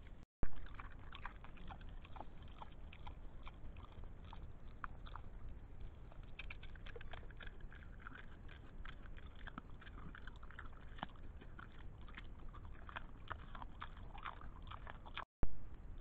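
Wild boar chewing and rooting close to a trail camera's microphone: a stream of irregular crunching clicks over a steady low rumble. A brief loud pop about half a second in and again near the end, where the recording cuts between clips.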